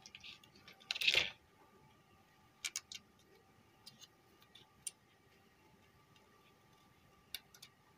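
Small clicks and taps of a switching power supply's circuit board and a replacement power transistor being handled, as the transistor's leads are pushed into the board. A short scraping rustle comes about a second in.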